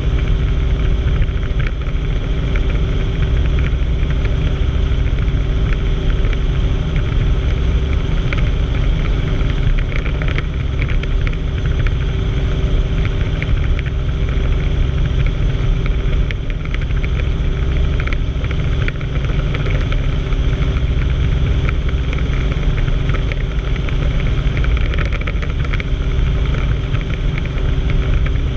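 Helicopter in flight heard from inside the cabin: a loud, steady drone of engine and rotor, with a few steady tones over a deep rumble.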